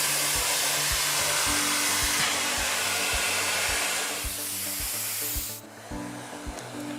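Miele Complete C3 vacuum cleaner running with a steady rush of air, easing a little about four seconds in and cutting off suddenly about five and a half seconds in. Background music with a steady beat plays underneath.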